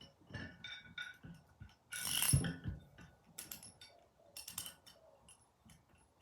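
Small steel parts clicking and clinking as a washer and E-clip are fitted onto a vise's screw, with a louder clatter about two seconds in.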